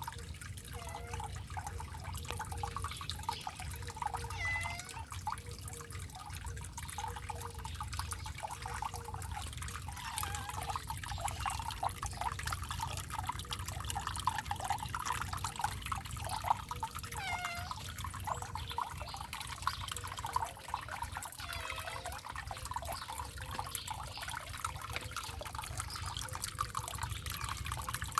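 Water fountain trickling and splashing steadily, with a cat meowing a few times.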